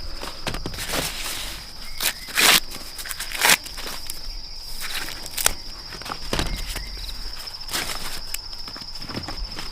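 Insects chirring steadily on one high, slightly pulsing note, with irregular footsteps and short rustles and crackles breaking in every second or so.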